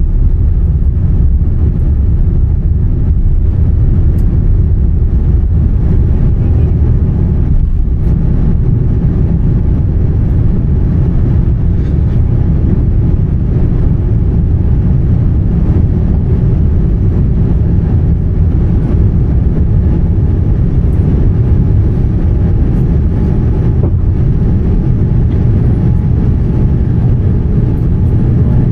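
Boeing 787-10's Rolls-Royce Trent 1000 engines at takeoff power heard from inside the cabin: a loud, steady low rumble as the airliner rolls down the runway, lifts off and climbs.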